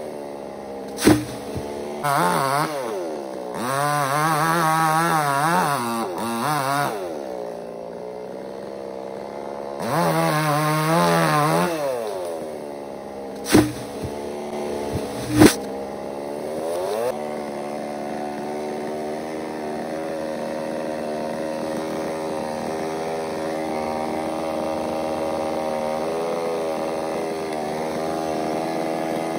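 Two-stroke chainsaw revving up and down in several bursts, with three sharp knocks among them, then settling into a steady idle for the second half.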